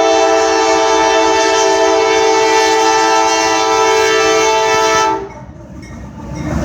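CSX freight locomotive's air horn sounding one long blast, a chord of several steady notes, which cuts off about five seconds in. After it, the low rumble of the slow-moving train.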